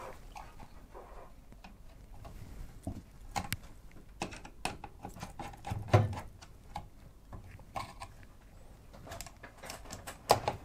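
Scattered clicks, taps and light knocks of an AIO pump head and its braided tubes being handled and seated onto the CPU mounting standoffs. A dull knock about six seconds in is the loudest, and there is another sharp click near the end.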